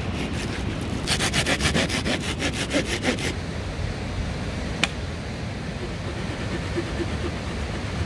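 Hand saw cutting a dry deadwood branch with quick back-and-forth strokes, starting about a second in and stopping after about two seconds, followed by a single sharp click; a steady rushing of a mountain stream runs underneath.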